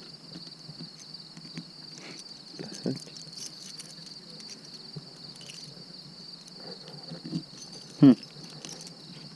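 Crickets chirping in a steady high-pitched chorus. A few faint clicks and two brief voice sounds come over it, the louder one about eight seconds in.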